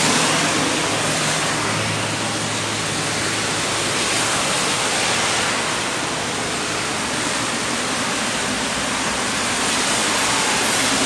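Heavy rain falling, a loud, steady hiss.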